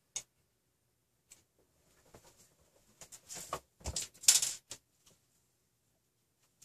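Light clicks and clatter of a stepper motor, M3 bolts and washers being handled and fitted to a printed plastic motor mount: a few faint clicks, then a cluster of sharper knocks and clatter about three to five seconds in.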